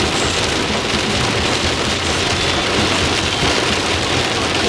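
Heavy rain falling on a moving car, a steady loud hiss heard from inside the cabin.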